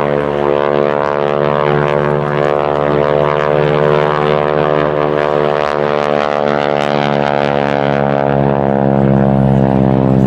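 North American Harvard's nine-cylinder Pratt & Whitney R-1340 Wasp radial engine and propeller droning steadily as the aircraft flies its display. It grows louder near the end as the pitch starts to drop.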